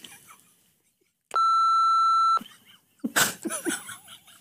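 A single steady electronic censor bleep, a pure tone lasting about a second, cut into dead silence. About three seconds in, a man's breathy laughter follows.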